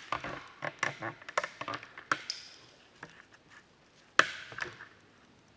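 Handling noise: a quick run of clicks and knocks, then quieter, with one loud sharp click about four seconds in.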